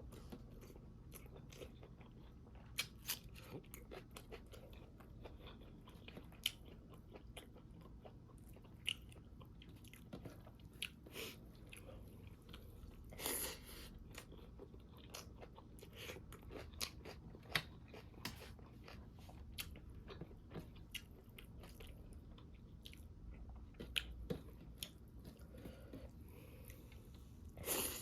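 Close-miked eating: chewing with many short, sharp crunches and mouth clicks as pork with crunchy bone is bitten and chewed, with a louder burst about halfway through and again near the end.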